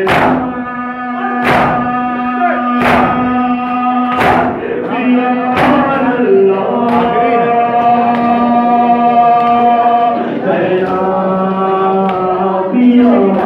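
Men's voices chanting a noha (mourning lament), holding long notes. For the first few seconds the crowd strikes their chests together, four loud slaps about a second and a half apart. After that the chant carries on without the slaps.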